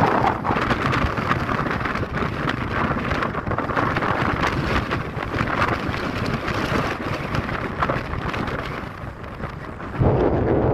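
Mountain wind blowing in gusts and buffeting the microphone, with a hissing rush that swells and eases. Near the end it changes suddenly to a louder, lower rumble.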